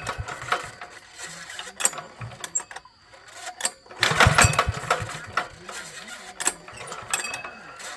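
The 173F single-cylinder diesel engine of a mini tractor being turned over, giving a burst of rapid low chugging knocks for about a second and a half around four seconds in, with shorter knocks and metallic clanking before and after.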